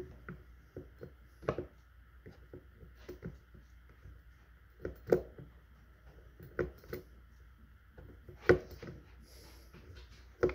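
Scattered light clicks and taps of a spinning reel being handled, with fingers working the fishing line at the bail's line roller, the sharpest click about 8.5 s in. A faint steady hum runs underneath.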